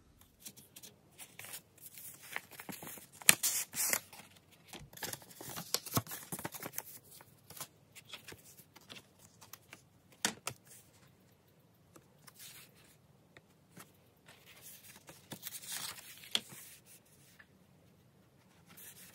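Paper and card stock rustling and sliding as postcards and a kraft paper envelope are handled, in short bursts with quiet pauses between.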